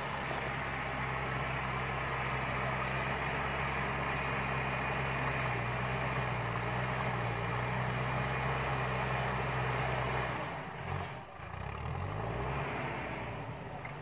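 Diesel engine of a JCB backhoe loader running steadily under load as it pushes soil with its front bucket. About ten seconds in the revs drop away and then climb again.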